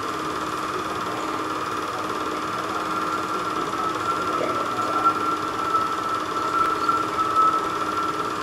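Cabin 8mm film projector running, a steady mechanical whir with a held, slightly wavering high whine.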